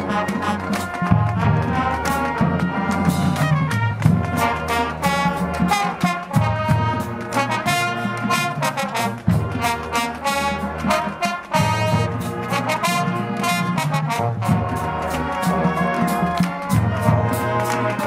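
High school marching band playing a tune: full brass section with trombones and trumpets, over sharp percussion hits in a steady beat.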